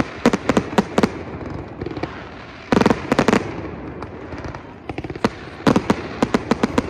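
Aerial fireworks shells bursting in quick volleys of sharp bangs and crackles. There is a cluster in the first second, a dense barrage about three seconds in, and a fast run of pops in the last two seconds.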